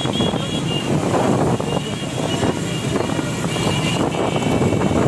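A group of small single-cylinder commuter motorcycles running together at low speed, with wind buffeting the microphone.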